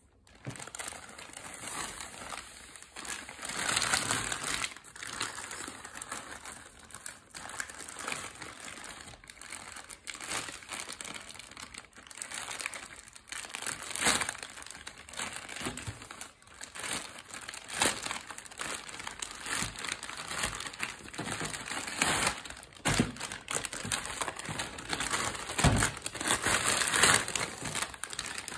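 Plastic courier mailer and clear plastic wrapping crinkling and rustling as they are handled and pulled open, an irregular crackle with frequent louder crunches.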